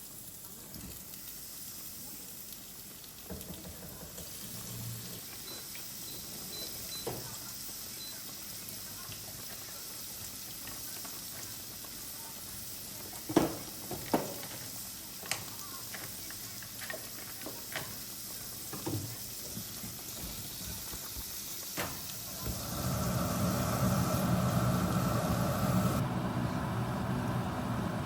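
Kitchen work sounds: a steady hiss like running water or sizzling, with a few sharp clinks and knocks of utensils, then a steady appliance motor hum starting about two thirds of the way in.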